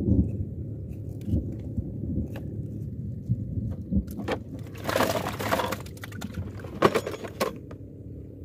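Clattering and scraping of fishing gear being handled in a small boat, with many short knocks and a longer scrape about five seconds in, over a low steady rumble.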